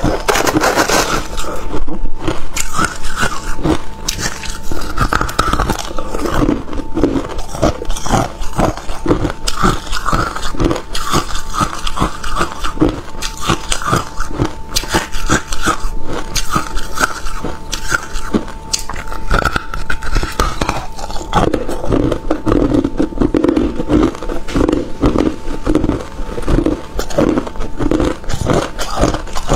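Hard clear ice being bitten and chewed, close to a clip-on microphone: a dense, continuous run of sharp crunches and cracks, several a second.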